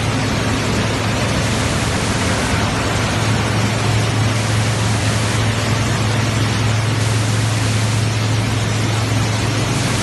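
PE film recycling and washing line running: a steady loud machinery noise with a constant low hum underneath.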